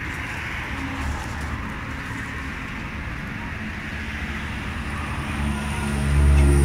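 Steady hiss with a low motor-vehicle engine hum that grows louder about five and a half seconds in.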